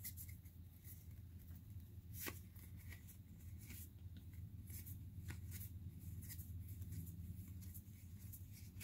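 Pokémon trading cards being flipped through by hand, one card slid off the front of the stack at a time: faint soft rustles with a few light snaps. A steady low hum sits underneath.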